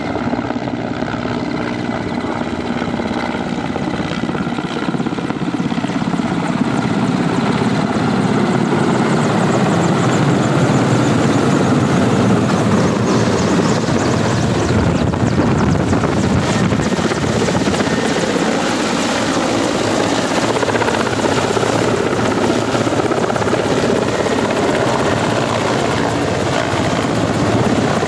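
Mil Mi-17-type military transport helicopter, its main rotor and turbine engines running as it passes low overhead and comes in to land. The sound grows louder over the first several seconds, then holds steady and loud.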